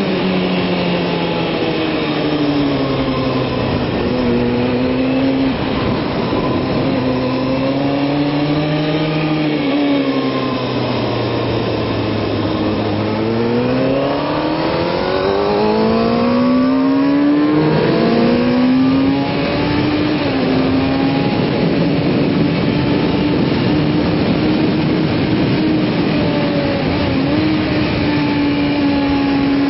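Kawasaki ZX-6R's inline-four engine heard from on the bike at track speed, with a rush of wind noise. The engine note sinks as the bike slows, climbs steeply again from about halfway through, dips briefly, then holds high and steady.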